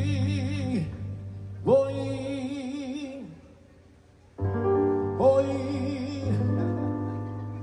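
Live Latin son band with a male singer holding three long notes with vibrato over steady bass and keyboard. The band drops almost to silence for about a second between the second and third notes, and the sound fades near the end.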